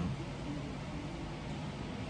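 Steady low mechanical rumble with an even hiss.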